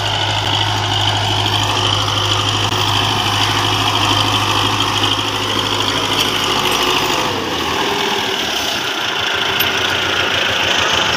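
Belarus farm tractor's diesel engine running steadily under load, its note dropping about seven seconds in as it is brought to a stop and settles toward idle.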